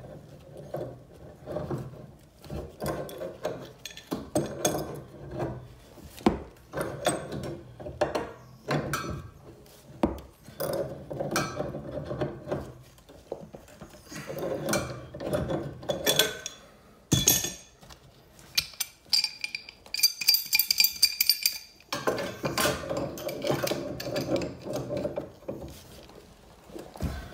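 Pipe wrench working the brass valve fitting of a steam convector radiator: irregular metal clinks, scraping and rubbing as the wrench is set and pulled, with a high ringing squeak for about two seconds a little past the middle.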